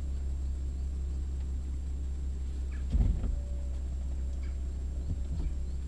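BMW 440i convertible's folding metal hardtop retracting into the boot, its mechanism working over a steady low rumble, with a single loud thud about three seconds in as the roof panels and boot lid move into place and a few lighter knocks after.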